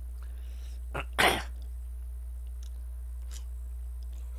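A man coughs once, sharply, with a small catch just before it. A few faint mouth or chopstick ticks follow.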